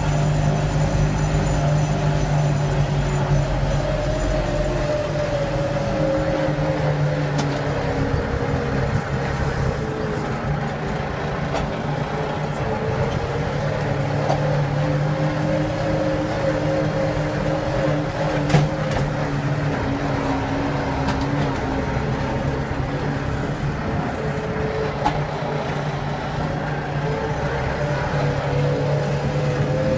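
Başak 2075 DKK tractor's diesel engine running steadily under load, heard from inside the cab, while it pulls a disc harrow. A single sharp knock about eighteen seconds in.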